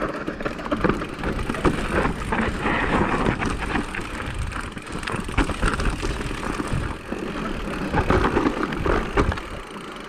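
Electric mountain bike descending a rocky dirt singletrack: tyres crunching over loose stones and the bike rattling and knocking over the bumps, with a low rumble of wind on the microphone.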